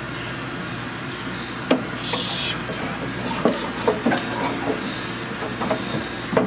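Dryer belt being worked around a Speed Queen stack dryer's drum: scattered knocks and clicks with a brief rub, starting about two seconds in, over a steady background hum.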